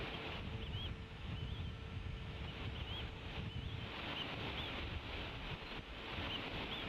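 Bald eagle hatchlings peeping softly while being fed, a string of short, high, curling chirps. Steady wind rumbles on the microphone underneath.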